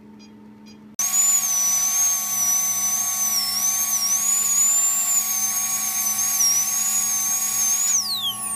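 High-speed dental handpiece (dental drill) starts about a second in with a loud, high, slightly wavering whine over a hiss, then spins down with a falling pitch near the end.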